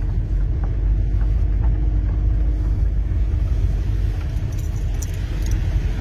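Car cabin noise while driving on a gravel road: a steady low rumble of engine and tyres.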